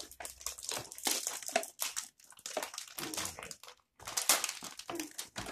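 Plastic toy packaging crinkling and crackling as it is handled and opened, in a run of short, irregular rustles.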